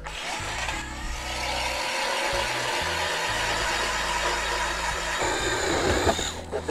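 StrikeMaster Lithium 40V electric ice auger drilling into lake ice: a steady motor whine over the grinding of the bit, cutting off near the end.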